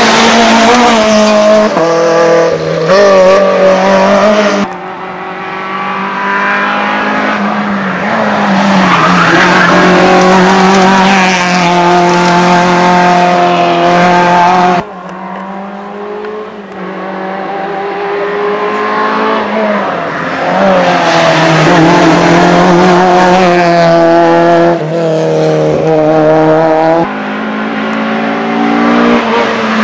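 Rally cars at full stage pace, engines revving high and falling away again and again with gear changes and lifts through a bend. The sound cuts off abruptly about five and fifteen seconds in and again near the end, as one car's run gives way to the next.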